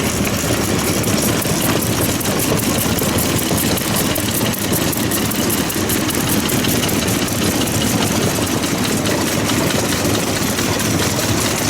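Vintage stationary engines running steadily at idle, with a regular firing beat.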